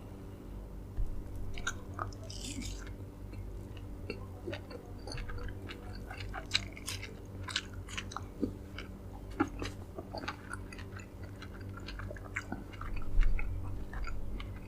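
Close-up wet chewing and mouth clicks of someone eating dragon fruit, with a louder burst of chewing near the end. A steady low hum runs underneath.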